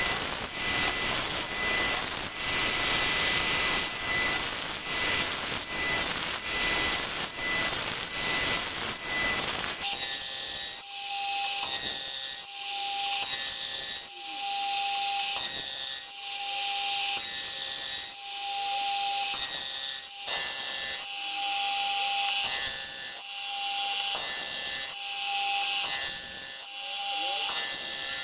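Module 1 gear cutter milling teeth into an aluminium 100-tooth gear blank, a steady rasping cut. From about ten seconds in it repeats cut after cut, roughly one every second and a half, as each tooth space is indexed and cut.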